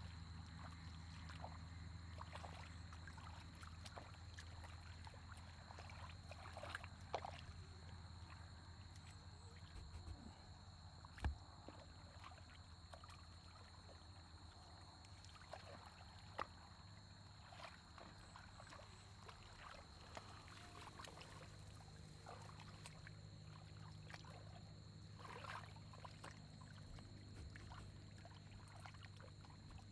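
Faint sloshing and small splashes of muddy water as hands grope through paddy-field mud for fish, with a sharp knock about eleven seconds in. Under it run a steady low hum and a steady high-pitched whine.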